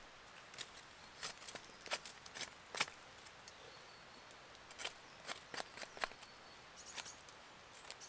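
Knife cutting and peeling damp birch bark from a fallen log: faint, irregular cracks and clicks as the bark splits and comes away, with light crackle of dry leaf litter.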